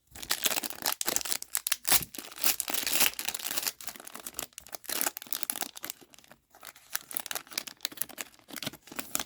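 Wrapper of an Upper Deck hockey card pack being torn open and crinkled: a dense run of rapid crinkling and tearing, loudest in the first few seconds.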